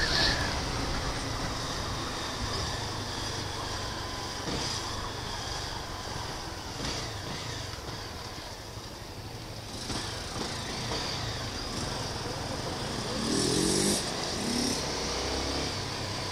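Honda CB 250F Twister's single-cylinder engine running at low revs in slow city traffic, under a steady rush of air noise. Near the end the engine revs up twice, its pitch climbing each time, as it pulls away.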